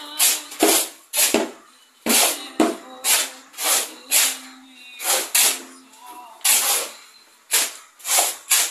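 Steel shovels scraping into a heap of sand and cement as two workers dry-mix concrete by hand: a quick gritty scrape about every half second, irregular as the two alternate. Background music with singing plays underneath.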